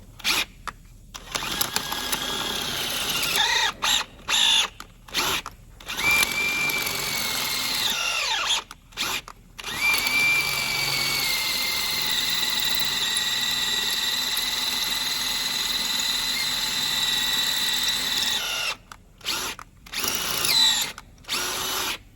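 Power drill boring out a snapped bolt with a 6 mm bit: short stop-start bursts, then runs of a few seconds and one steady run of about eight seconds with a high whine from the bit cutting, then more short bursts near the end.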